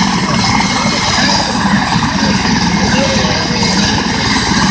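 Eurocopter EC130 air-ambulance helicopter running on the ground with its main rotor turning: a steady, rapid rotor chop under a steady high turbine whine.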